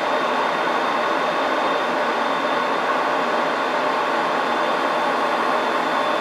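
Steady roar of air and engines inside an aircraft cockpit in flight, an even rushing noise with a faint high whine running through it.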